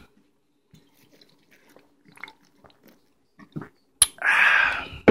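A man drinking from a glass beer bottle: faint sips and swallows, a sharp knock about four seconds in, then a loud breathy rush lasting under a second.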